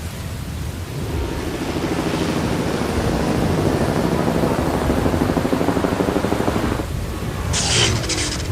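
Storm sound effect: rain with a long, swelling rumble of thunder, followed by a short sharp crackle near the end.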